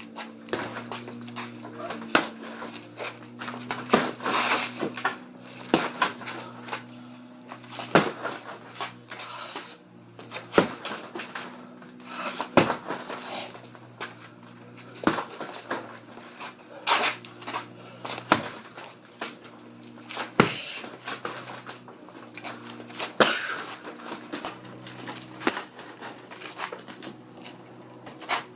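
Heavy punching bag being hit, one sharp thud about every two seconds, with the metal hanging chain jingling after the blows. A steady low hum runs underneath.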